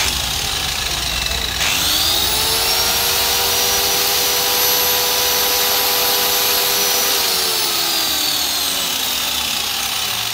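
Hitachi electric circular saw running with no load. Its motor spins up to a steady whine within the first two seconds, runs, then winds down with falling pitch from about seven seconds in. The saw makes a noise that the seller suspects comes from something loose.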